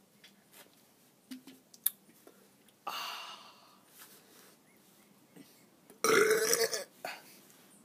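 A person burps loudly once, for just under a second, about six seconds in, a burp brought up by drinking carbonated Mountain Dew. A softer hissing noise comes about three seconds in, and a few faint clicks before it.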